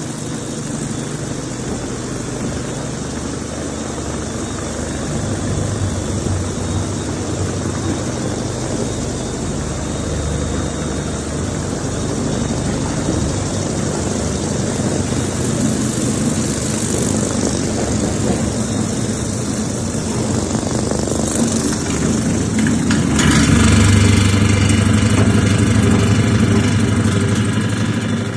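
Industrial mixing machinery running steadily with a low hum. About 23 seconds in it gets louder, with a stronger hum and a layer of high whining tones.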